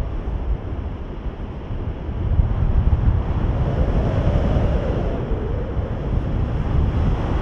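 Wind buffeting the microphone of a paraglider pilot's camera in flight, a steady low rumble that eases briefly about a second in and then picks up again. A faint wavering tone sounds through it near the middle.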